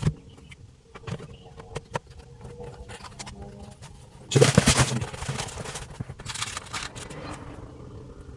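Plastic dash trim panel being handled and fitted: scattered light clicks and knocks, with a louder scraping rattle lasting about a second, starting about four seconds in.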